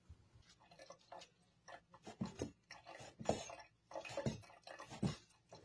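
A cleaver chopping boiled beef tripe on a wooden cutting board: a series of knocks starting about a second and a half in, the loudest roughly a second apart with lighter taps between.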